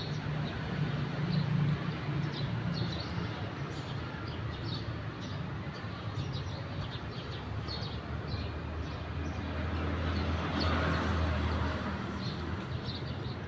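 Road traffic running past, a low engine drone that swells twice, with small birds chirping over it.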